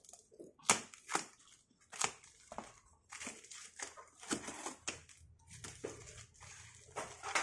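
A cardboard parcel being opened: a knife slitting the packing tape, then the cardboard and yellow plastic wrapping torn and crinkled by hand, in a string of sharp, irregular rips and crackles.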